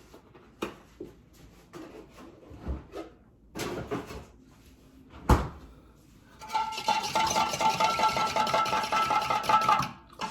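A spoon stirring hot cocoa in a mug. It starts with a few scattered clinks and one sharp knock, then about halfway through it turns into fast, continuous stirring that clinks against the ringing mug for about three and a half seconds.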